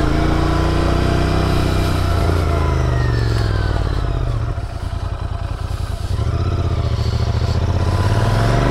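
Royal Enfield Continental GT 650's parallel-twin engine running under way, its revs rising and falling. Just past the middle the engine note drops and quietens for a second or two, then builds again near the end.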